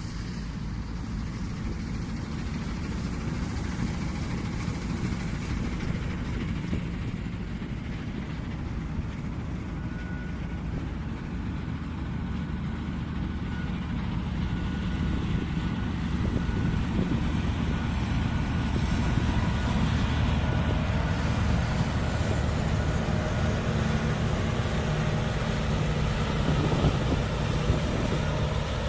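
Diesel engine of harvest machinery running steadily, growing louder from about halfway through.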